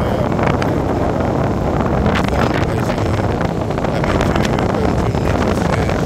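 Strong wind blowing across the microphone, a steady loud rumble.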